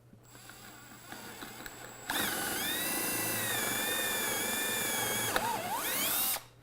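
Power drill boring a dowel hole through a wooden breadboard end and its tenon. After a quieter lead-in, the motor whines steadily at speed from about two seconds in. Near the end its pitch sags and recovers briefly before it stops.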